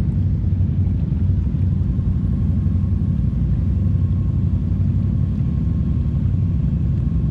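ATV engine idling steadily, an even low rumble that does not change.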